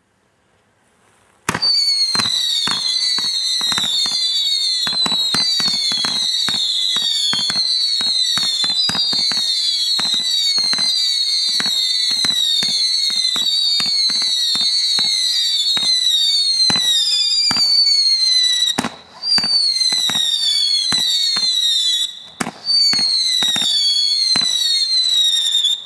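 Whistling Whirl Floral spinning firework screaming: a shrill whistle that keeps sliding down in pitch in quick repeated sweeps, with many sharp cracks throughout. It starts about a second and a half in and drops out briefly twice in the last third.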